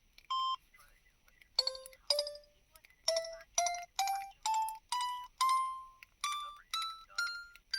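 Samsung SGH-CC01 mobile phone ringtone. A short electronic beep comes first, then a rising scale of about a dozen bell-like notes. Each note is struck and fades, and each is a step higher than the last.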